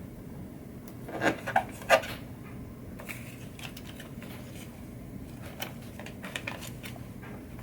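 Small clicks, taps and rubbing from tweezers handling mylar stickers on a pinball playfield, with three sharper taps about a second in, over a steady low hum.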